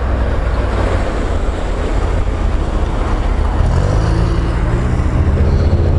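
Honda NC750 parallel-twin engine running under way, heard from the pillion seat with wind and road noise on the helmet microphone. A little past halfway the engine note rises and then holds steady.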